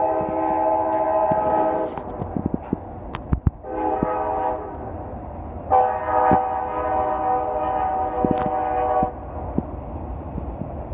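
CSX freight locomotive's multi-note air horn blowing three times: a long blast that stops about two seconds in, a short one around four seconds, and a long one from about six to nine seconds. The steady low noise of the passing train runs under it.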